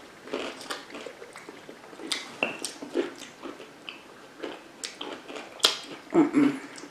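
Close-up chewing of a sour pickle topped with whipped cream: irregular wet crunches and smacking mouth sounds. A brief hum-like voice sound comes a little after six seconds in.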